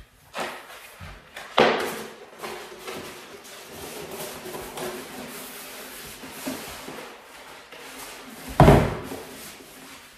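A strip of wallpaper being pulled off a wall and handled: continuous paper rustling and crackling, with two loud thumps, about one and a half seconds in and near the end.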